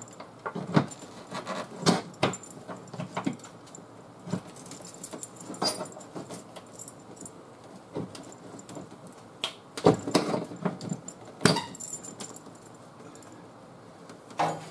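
Steel chain of a mini pogo pulling stick clinking and rattling as the stick is levered against a crumpled steel fender to pull the dent out, with irregular metal clicks and clanks, the loudest about ten seconds in and a second and a half later.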